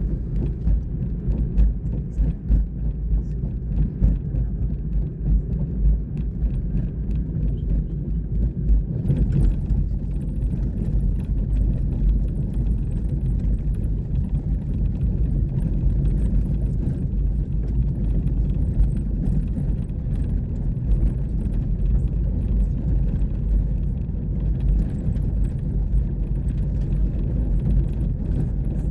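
Vehicle driving over a rough farm track, heard from inside: a steady low rumble with many small knocks and rattles throughout.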